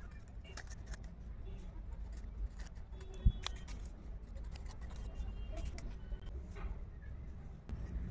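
Stiff craft paper being handled as a folded pop-up card is opened and closed: light crinkling and ticking, with one sharp bump about three seconds in, over a low steady rumble.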